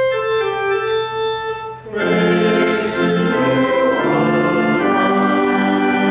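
Organ playing a short passage: a single melody line at first, then full chords from about two seconds in.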